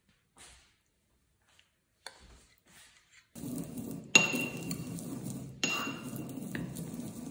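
A metal fork and chopsticks mixing tuna into rice in a ceramic bowl, scraping and clinking against the bowl. There are a few soft taps at first, then steady stirring from about three seconds in, with sharp clinks about four seconds in and again a second and a half later.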